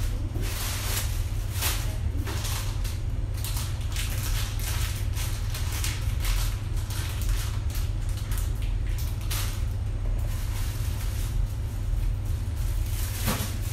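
Plastic packaging crinkling and rustling in irregular bursts as wrapped items are handled and lifted out of a cardboard box, over a steady low hum.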